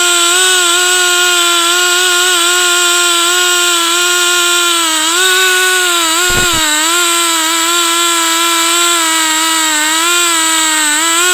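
Two-stroke chainsaw held at full throttle, ripping through a log in an Alaskan-style chainsaw mill. Its pitch stays high and steady, sagging slightly now and then as the chain loads up in the cut. A couple of brief low knocks come about six seconds in.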